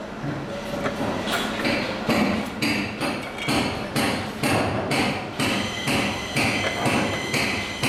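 Steady hand-hammering on metal, about two blows a second, each strike leaving a short metallic ring.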